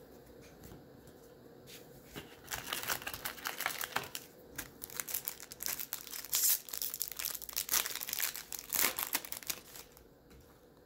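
A Topps baseball card pack's wrapper being torn open and crinkled by hand. It starts about two seconds in, eases briefly, and stops shortly before the end.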